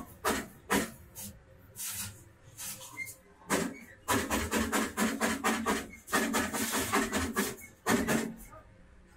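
Electric arc welding of steel-wire rack joints: a few short strikes early on, then two runs of rapid crackling, each about two seconds long, starting about three and a half seconds in.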